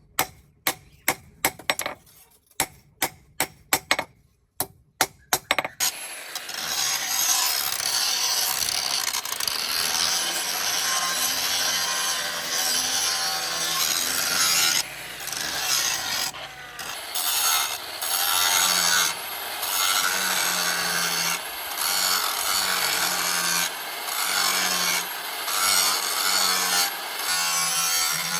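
Hammer blows on steel, about two sharp ringing strikes a second, for the first six seconds. Then a continuous rasping of steel being worked with an abrasive tool, easing off briefly every second or two.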